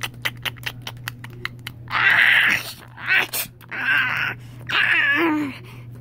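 Plastic toy dragons tapped quickly on a tile floor, about five taps a second, then from about two seconds in a child's voice makes three harsh, growling dragon roars.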